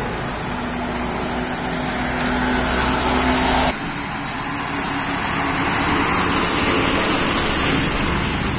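Road traffic on a wet road: vehicle engines and tyres over a steady hiss of rain and running water. A steady engine hum is heard in the first few seconds, and the sound changes abruptly a little under four seconds in.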